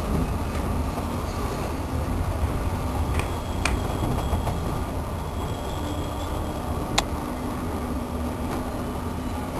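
Steady low rumble of a moving passenger train heard from inside the carriage, with two sharp clicks, the second and louder one about three-quarters of the way through.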